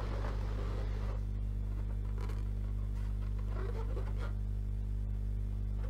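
Steady low hum with a stack of even tones, and a few faint rustles now and then.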